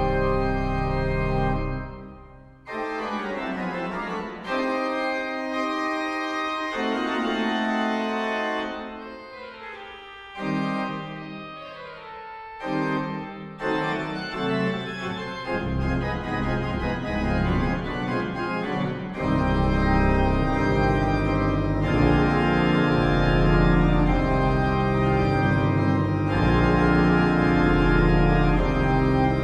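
Pipe organ playing. A full chord with pedal bass breaks off about two seconds in, and lighter, higher passages with short pauses follow. From about halfway the pedal bass comes back and the organ builds to loud, full chords.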